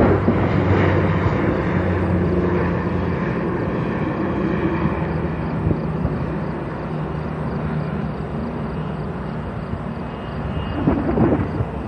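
Jet aircraft engines rumbling at a distance, with a steady low hum, slowly fading. A few rougher, louder bursts come near the end.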